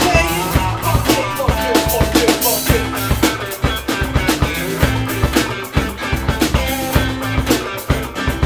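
A funk band playing live: a four-string electric bass and a drum kit carry the groove, with regular kick and snare hits.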